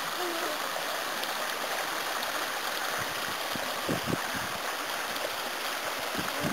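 Shallow mountain stream running over stones, a steady rushing hiss of water, with a few low thumps about three to four seconds in.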